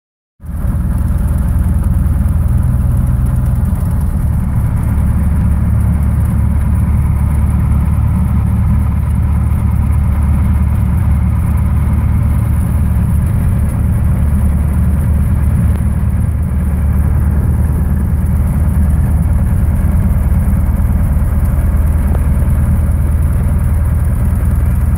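Cessna 172's piston engine and propeller running steadily with a low drone, heard from inside the cockpit.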